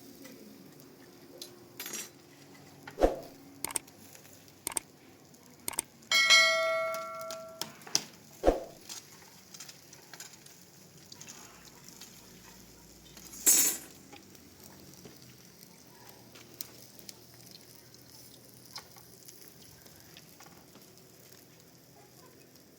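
Kitchen clatter: scattered knocks and clinks of metal dishes and utensils. About six seconds in, one struck metal pot or tray rings for nearly two seconds. A louder knock comes later, and the last several seconds are quieter.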